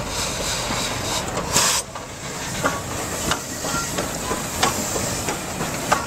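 2-6-0 steam locomotive moving slowly past with steam hissing, a louder blast of steam about one and a half seconds in, and a few sharp knocks.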